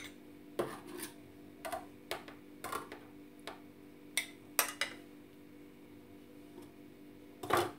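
A metal spoon clinks against a tin can and a porcelain plate as canned peach halves are scooped out and set down. The light clinks and taps come irregularly, with the loudest near the end, over a faint steady hum.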